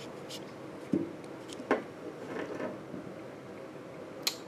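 A few light clicks and knocks from handling tools and measuring in a workshop: three short strikes, about one, two and four seconds in, over quiet room tone.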